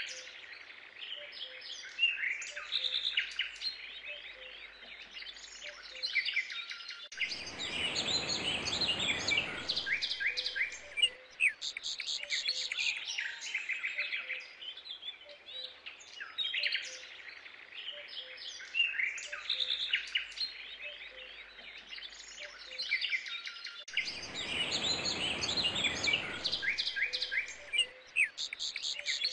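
A chorus of small songbirds chirping and trilling all through. Twice, for about three seconds each time, a broader rush of noise rises under the birdsong.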